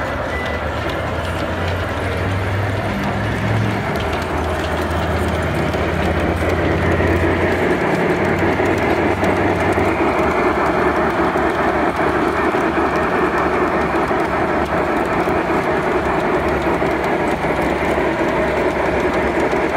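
Large-scale model steam train running along its track: a steady rushing hiss of wheels and running gear that grows louder about six seconds in, with some low humming tones in the first half.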